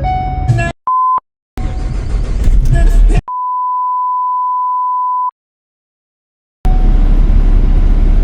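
Two plain single-pitch beeps, a short one about a second in and a longer one of about two seconds a little after three seconds, with abrupt drops to dead silence around them. From near the end, the Ford Transit 350 is running, with a steady low rumble and the heater blower going.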